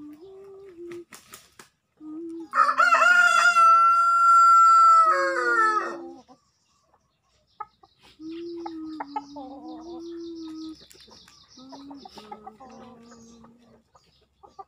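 A rooster crows once, loud and long, starting about two and a half seconds in: the call holds one pitch and then falls away at the end. Around it a quieter low tone steps up and down in pitch.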